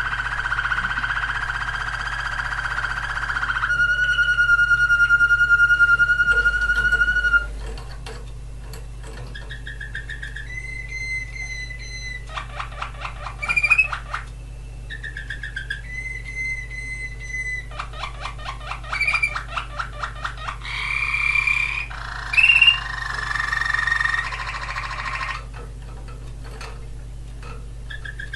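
Male Waterslager canary singing its song: a long steady note, then a held pure whistle, then short phrases of fast repeated notes and quick up-and-down glides, with short pauses between phrases.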